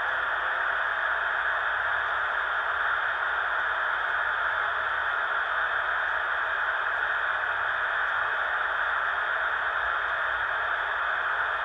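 Steady radio static: an even hiss from a USB one-seg tuner used as a software-defined radio, tuned to the municipal disaster-prevention radio channel, with no chime or voice coming through.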